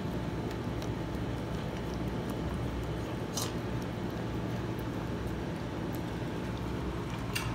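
German shepherd puppy eating dry kibble mixed with minced beef from a stainless steel bowl: scattered small crunching clicks, with two louder clicks about three and a half seconds in and near the end, over a steady low hum.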